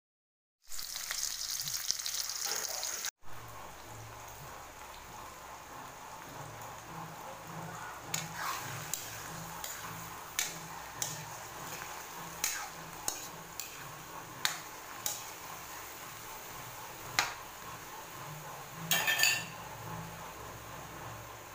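Okra sizzling as it stir-fries in hot oil in a wok. The sizzle is loudest for the first couple of seconds, then runs on more quietly. A spatula clicks and scrapes against the pan several times, with a louder scrape near the end.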